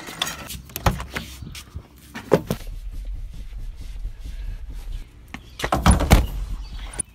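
Knocks and thumps of someone moving about in a car's driver's seat and handling the car door, loudest around six seconds in, over a low rumble in the middle stretch.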